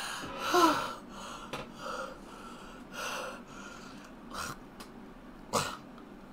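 A man gasping and breathing hard through an open mouth in pain, with a short strained cry falling in pitch about half a second in, then several short sharp breaths.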